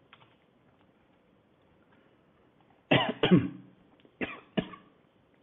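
A man coughing: two loud coughs about three seconds in, then two shorter ones a second later.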